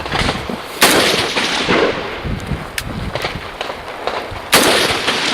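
Two rifle shots about four seconds apart, each a sharp crack followed by a long rolling echo, with a few fainter cracks between them.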